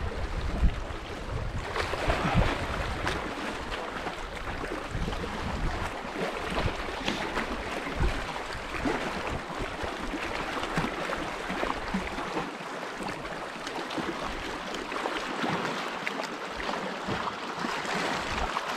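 Small waves lapping and splashing against shoreline rocks, with wind buffeting the microphone as a low rumble that eases off about two-thirds of the way in.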